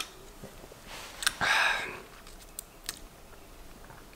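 A man drinking from a can: small mouth and can clicks, then a short breathy exhale about a second and a half in, the loudest sound.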